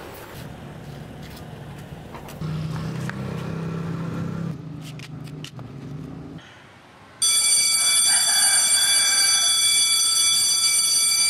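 A school bell ringing steadily and loudly for about four seconds, starting about seven seconds in and cutting off abruptly. Before it, quieter background with a low hum and a few faint clicks.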